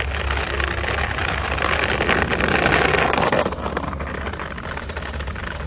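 Small wheels of a kids' three-wheeled kick scooter rolling over paving stones: a rough, rattling hiss that grows louder as it passes close by about three seconds in, then drops away.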